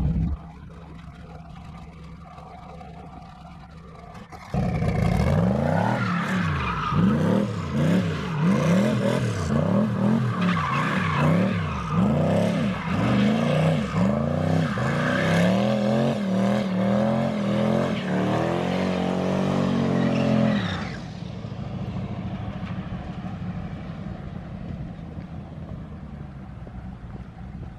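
Twin-turbo Chevy S10's 5.3-litre V8 pulling hard on a run, its revs climbing and dropping over and over for about sixteen seconds from about four seconds in, then falling away sharply and fading into the distance.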